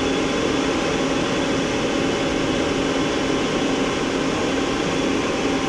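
Mori Seiki SL-403CMC CNC lathe spindle turning its 18-inch three-jaw hydraulic chuck at about 950 rpm in high range: a steady running sound with a low hum. The spindle sounds good.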